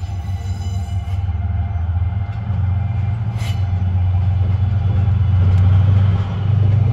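JR Freight DF200 diesel-electric locomotive running as it moves off and draws past, its deep engine drone growing louder. A brief high-pitched sound comes about three and a half seconds in.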